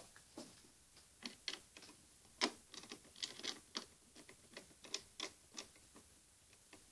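Cover being screwed back onto a break-glass fire alarm call point: a string of irregular light clicks and ticks from the screwdriver and small plastic parts.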